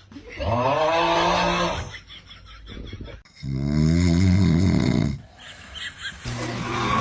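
A man snoring heavily: a long drawn snore that rises and falls in pitch about half a second in, then a low rattling snore about three and a half seconds in. A steady low hum starts near the end.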